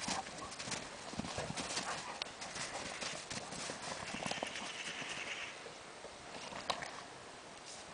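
Two Spanish mastiffs play-wrestling in snow: irregular scuffling and crunching of heavy paws in the snow, thickest in the first five seconds and thinning out near the end.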